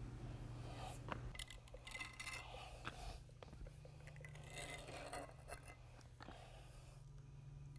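Faint scraping strokes of a steel trowel being drawn through wet metallic epoxy to blend the colours, with spiked shoes shifting on the wet coating, over a low steady hum.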